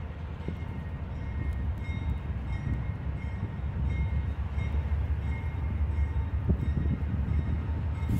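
Norfolk Southern diesel locomotive approaching, its low engine rumble growing steadily louder, with a faint bell ringing about twice a second.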